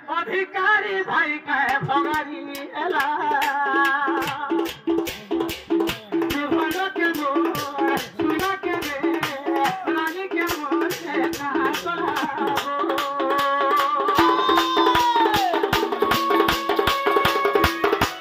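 Live folk music: a double-headed barrel drum (dhol) beaten by hand in a fast, dense rhythm, under a wavering melody line that glides in pitch about fifteen seconds in.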